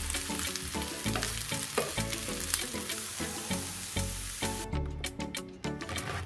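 Carrot strips and sliced onion frying in a non-stick pan, a steady sizzle with the scrape of a wooden spatula stirring them. The sizzle stops abruptly about four and a half seconds in, leaving a few light ticks. Light background music plays underneath.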